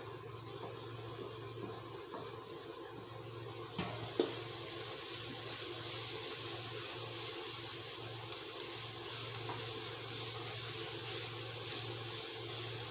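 Grated carrot and chopped vegetables sizzling in a hot kadai on a gas burner while being stirred with a wooden spatula. There are two light taps about four seconds in, after which the sizzle grows louder and holds steady.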